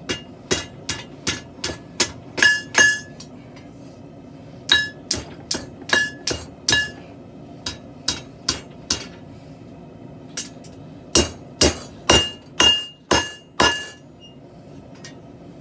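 Blacksmith's hammer blows on steel at the anvil, struck in runs of several blows with short pauses between them, each blow leaving a brief metallic ring; the hardest run of blows comes in the last few seconds.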